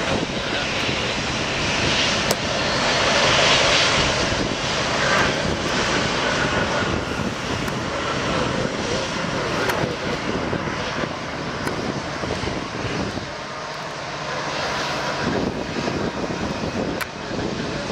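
Airliner's engines running loud as the plane passes the airfield, a dense steady roar that peaks a few seconds in and then slowly eases off.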